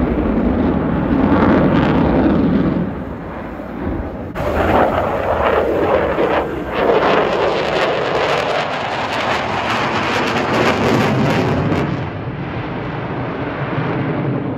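Loud aircraft engine noise from display flying, with a sudden change in the sound about four seconds in.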